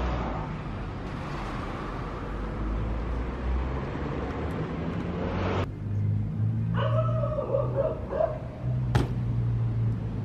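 A steady rushing noise that cuts off abruptly just past halfway, then a dog barking several times, and a single sharp bang about nine seconds in as a BMX bike lands a drop off a wall onto pavement. A low steady hum runs underneath.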